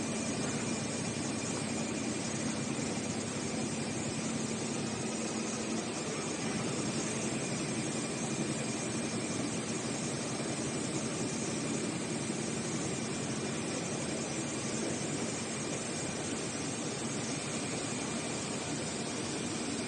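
Roll-to-roll heating-wire sewing machine running continuously under test, a steady mechanical whir with a faint hum that fades after about six seconds.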